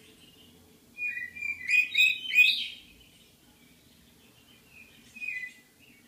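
Budgerigar chirping: a quick, loud run of chirps starting about a second in and lasting nearly two seconds, then one short chirp near the end.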